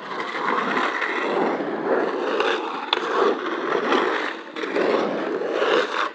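Skateboard wheels rolling and grinding over the rough, debris-strewn surface of an empty swimming pool as the rider carves the walls, a continuous gritty rolling noise that ends abruptly.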